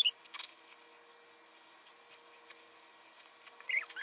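Short, high, chirping animal calls: one right at the start and a couple near the end, with a faint steady hum and small clicks in between.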